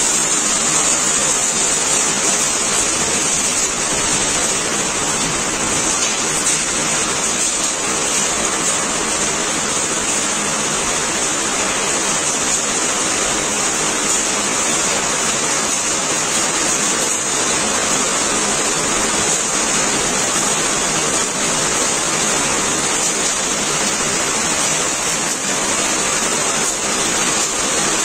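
Heavy rain pouring steadily onto a paved road and ground, with runoff water streaming along the roadside ditch.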